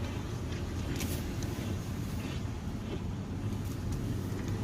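Steady low rumble of a car running, engine and road noise heard from inside the vehicle.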